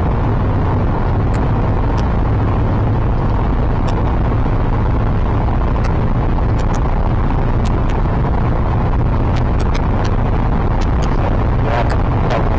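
Steady low rumble of a car's cabin while driving, with scattered sharp ticks over it.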